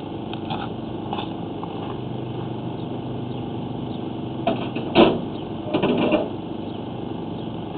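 Steady low hum of running machinery, broken from about four and a half to six seconds in by a few loud clattering knocks and scrapes as a sewer inspection camera's push cable is handled and fed into the drain line.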